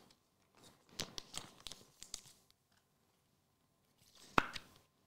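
Trading cards handled and flipped through by hand: a run of small clicks and rustles, then one sharp click about four and a half seconds in.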